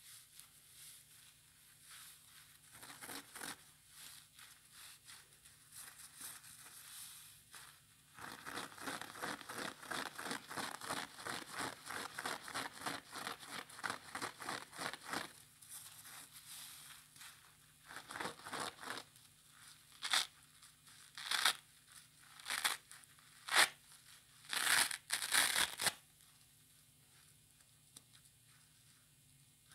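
Wet, soapy kitchen sponge, a green scouring pad on yellow foam, being squeezed and ripped apart by hand. Soft crackling builds into a dense run of rapid crackly tearing about eight seconds in. Then come a series of short, separate loud rips.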